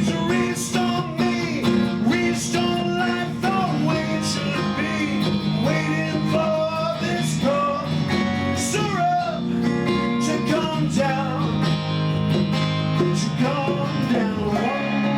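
A band playing a rock song, led by guitar, in a stretch without sung lyrics.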